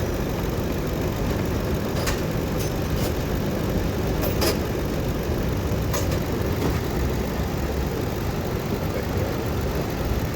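Ford car engine idling steadily with the AC compressor running while the system is charged with R-134a refrigerant. A few light clicks come about two, four and a half and six seconds in.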